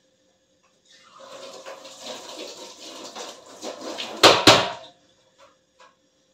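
Kitchen tap water running into a stainless-steel sink for about four seconds, ending with two loud knocks close together, then a couple of light clicks.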